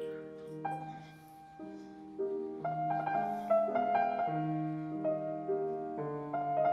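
Background piano music: a melody of held notes over a lower line, growing louder toward the end.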